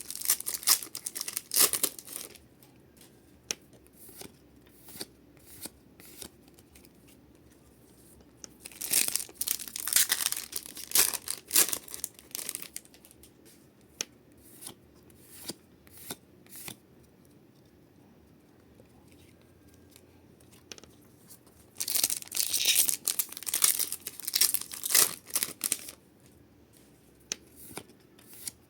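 Pokémon card booster-pack wrappers being torn open and crinkled in three bursts of rustling, with small clicks of cards being handled in between.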